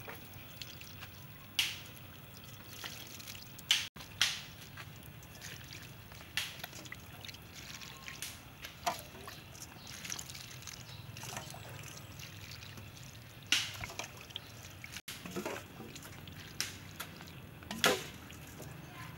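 Spicy chili sauce ladled from a metal ladle and dripping and trickling onto a tray of chicken feet. A few short sharp clinks are scattered through it.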